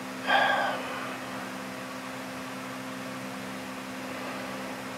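A steady low hum with a few fixed tones, like a machine running, and one short louder sound about a third of a second in that fades within half a second.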